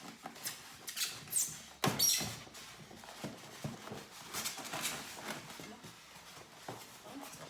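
Handling noise from unpacking a computer from its box: rustling, sliding and small knocks of packaging, with one sharp knock about two seconds in.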